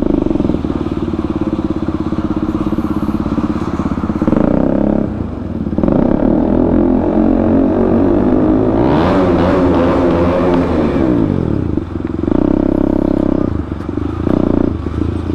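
KTM Duke 200's single-cylinder engine running under throttle, its pitch rising and falling as the rider revs and shifts, with a brief easing-off around a third of the way in and a marked rise and fall in pitch past the middle.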